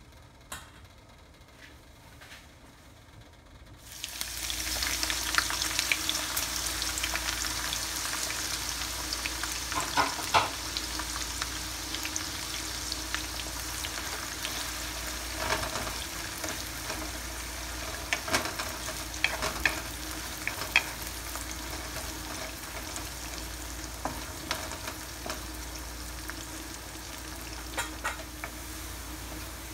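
Sliced shallots and garlic sizzling in hot oil in a pan. The sizzle starts suddenly about four seconds in and carries on steadily, with scattered knocks and scrapes of a wooden spatula stirring them.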